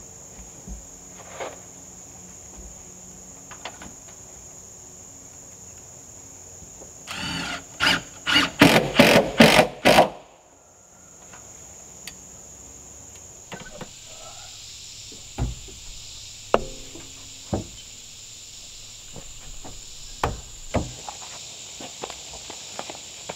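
Hammer nailing wooden trim: a quick run of about six loud blows partway through, then scattered single strikes. A steady high insect drone runs underneath.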